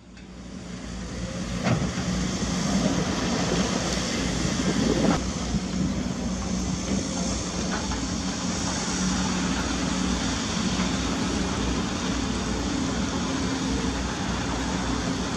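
Caterpillar 320D2 GC excavator's diesel engine running steadily under load while it loads sand into a dump truck. The sound fades in at the start, with a couple of sharp knocks about 2 and 5 seconds in.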